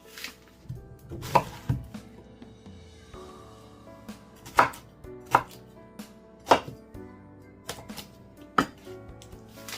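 Knife chopping fruit on a cutting board: about seven separate sharp cuts at uneven spacing, over faint background music.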